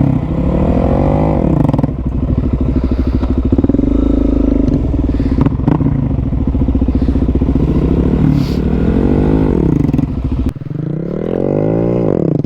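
Motorcycle engine revving up and dropping back about four times in first gear, as a rider practises popping the front wheel up and setting it down.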